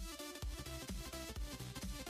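Electronic background music with a steady beat of about two low thumps a second under sustained synth notes.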